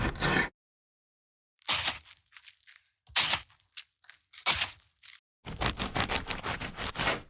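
Kitchen knife cutting: a few separate cuts spaced under a second apart, then, after a brief silence, a fast run of chopping strokes.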